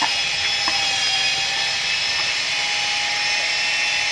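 Electric power tool running steadily on a building site, a continuous high-pitched whine and hiss.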